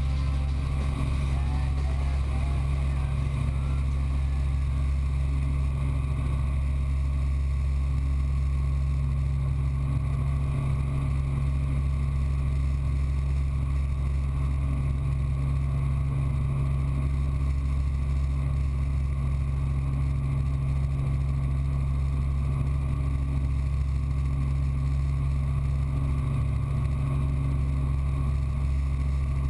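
Helicopter in flight: the steady low drone of its rotor and engine, even in level throughout.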